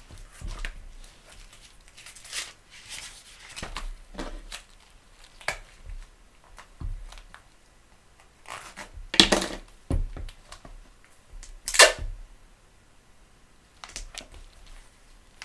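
Adhesive tape being pulled, torn and pressed down while a Bible's loose binding is taped up, with rustling and handling of the book. Two louder tearing sounds stand out, about nine and twelve seconds in.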